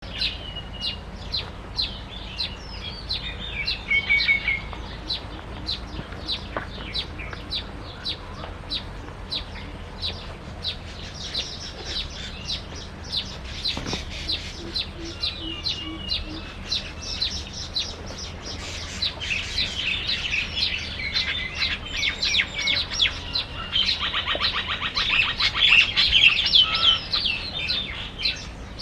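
Small birds chirping in short, sharp, high notes, a couple a second, with a fast rattling chatter that is loudest near the end.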